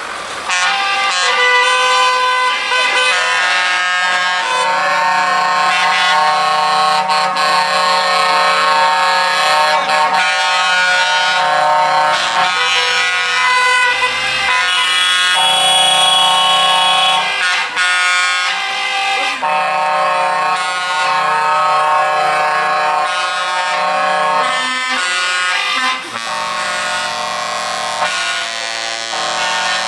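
Vehicle horns, air horns among them, blaring together in long overlapping blasts from a passing convoy of vans and trucks; the blend of pitches changes every several seconds.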